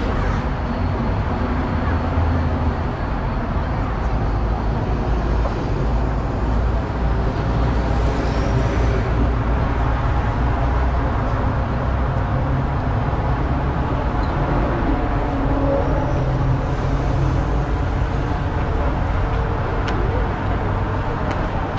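Steady city road traffic noise: cars and buses passing on a busy street, a continuous low rumble.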